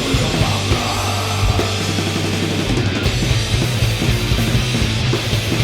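Heavy rock mix playing back at full level: distorted guitars, bass and a drum kit. The drum bus is running through a Germanium compressor plugin.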